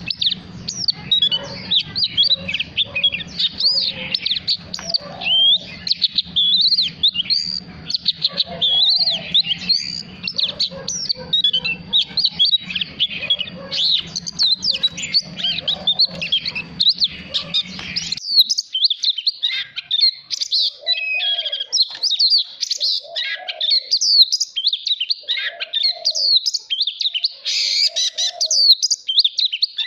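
Oriental magpie-robin singing a long, fast, varied song of whistles, trills and chattering notes with hardly a break. A low background hum under the song stops abruptly about two-thirds of the way in.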